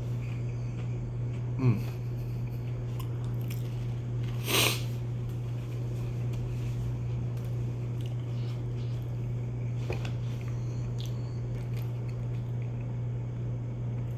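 A person chewing a mouthful of hot-pepper cheese, with soft mouth sounds and a louder short noisy burst about four and a half seconds in, over a steady low hum.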